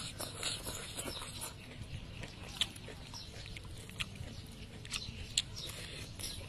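Close-up eating sounds: wet chewing and lip smacking as a fried fish is eaten, with a few sharper clicks scattered through, over a low steady hum.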